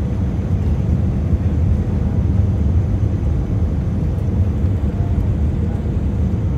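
Airliner cabin noise on the landing approach: a steady low rumble of the jet engines and rushing air, heard from inside the cabin.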